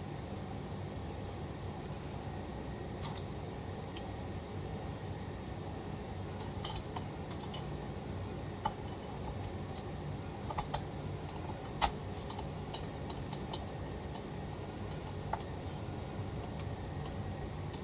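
Scattered light metallic clicks and taps from small parts and hand tools being handled while a chainsaw cylinder is refitted, the sharpest about twelve seconds in, over a steady low hum.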